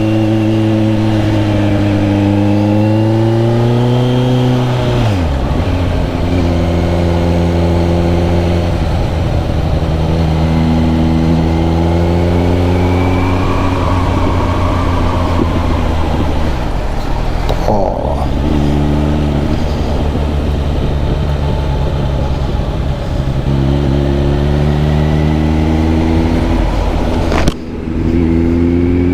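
Kawasaki Z900 SE's inline four-cylinder engine through an SC Project S1 exhaust, ridden on the road: the revs climb, hold and climb again, dipping briefly at three gear changes.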